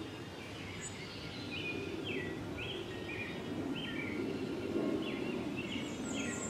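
A songbird repeating a short whistled note about twice a second, over a steady low background hum.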